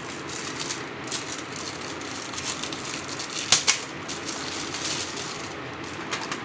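Clear plastic wrapping crinkling and crackling in irregular bursts as a metal car-shaped pencil box is unwrapped by hand, with one sharp louder knock about three and a half seconds in.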